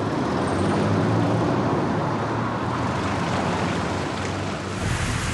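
Car driving along a wet road: steady engine and tyre noise. Near the end it gives way to a broader, even hiss like rain.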